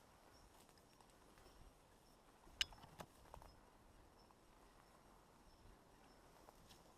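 Near silence with a faint outdoor background, broken by two sharp clicks a little under half a second apart, about two and a half seconds in, the first the louder.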